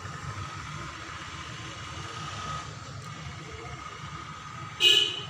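A steady low background rumble while the screws of a Bajaj Pulsar's front brake fluid reservoir cap are undone with a screwdriver. Near the end comes one short, loud, ringing metal clink.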